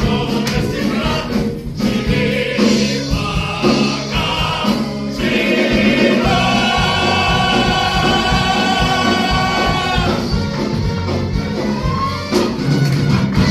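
Music with a choir singing. About halfway through, the voices hold one long chord that breaks off a few seconds later.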